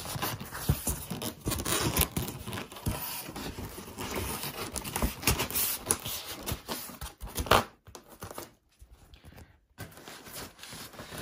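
1-inch foam board being pushed by hand into a tight-fitting wooden bench frame, the foam rubbing against the wood in a dense run of scraping and crackling clicks. The noise dies down about eight seconds in.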